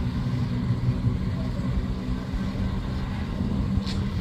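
Chevrolet Blazer SUV's engine running steadily under load as it pulls through deep, loose sand, where it had dug itself in.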